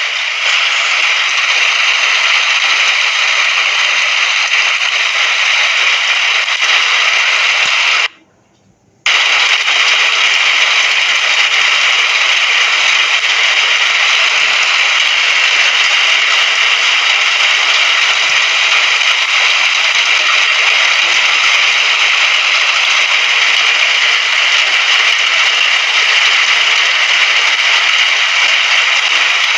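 Steady rain hiss, even and unbroken, that cuts out abruptly for about a second some eight seconds in, then resumes as before.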